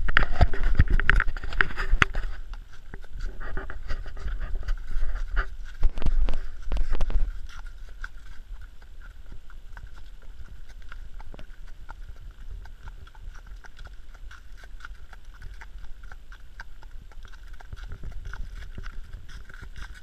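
Horse's hooves on a leaf-covered forest track, with tack and camera knocks. For the first seven seconds or so there is a heavy rumble and loud knocking on the microphone, after which the hoofbeats continue quieter.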